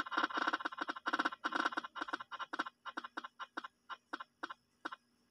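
A spin-the-wheel app ticking on a phone as its wheel spins. The ticks come fast at first and then slow down, spaced further and further apart as the wheel comes to rest on a name.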